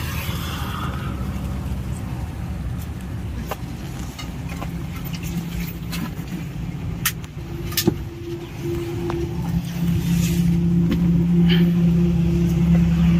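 Motor traffic on the road close by: a steady engine hum that grows louder in the second half as a vehicle draws near. A few short sharp clicks and knocks sound over it.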